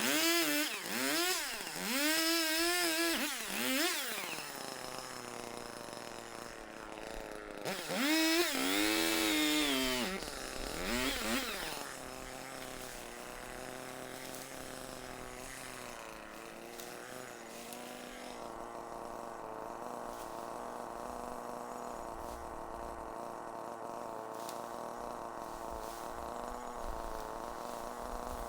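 Echo two-stroke chainsaw revved up and down in several quick bursts, then settling into a steady idle for the second half.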